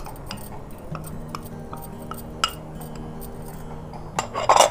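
A metal spoon tapping and scraping powdered spice out of a small ceramic bowl, with light clinks throughout, then a louder clatter near the end as the small bowls are stacked together.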